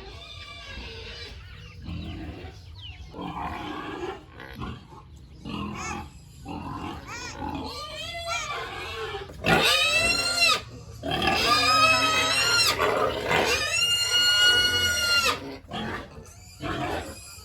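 Pigs grunting in short, uneven calls, then about halfway through breaking into loud, high-pitched squeals, a few long drawn-out cries one after another.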